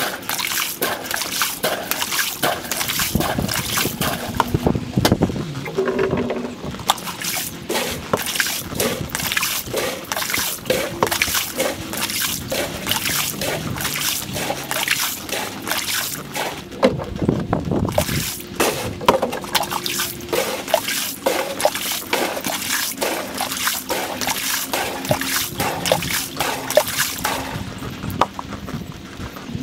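Water trickling and sloshing in a dense, crackling patter as an above-ground pool is drained through a hose, the audio running at four times speed.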